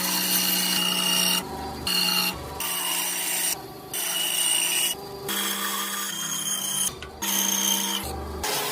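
An electric power tool, such as a rotary carving tool or grinder, running on wood with a steady whine. It starts and stops in about six bursts of half a second to a second and a half each.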